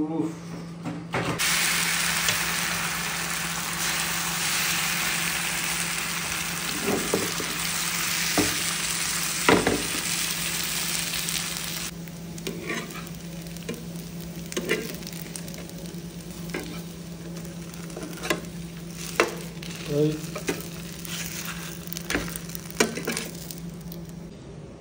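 Food sizzling in a pan on the stove for about ten seconds, stopping abruptly, followed by quieter cooking sounds with scattered light clinks and knocks of a utensil against the pot.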